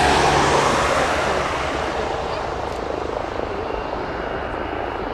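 Boeing 737's turbofan jet engines running as the airliner taxis past, a steady rushing jet noise that is loudest at the start and eases off slightly, with a faint high whine in the second half.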